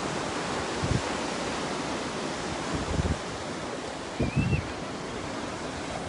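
Surf washing and breaking on a rocky shore, a steady rush of sea noise, with a few short low rumbles on the microphone about one, three and four and a half seconds in.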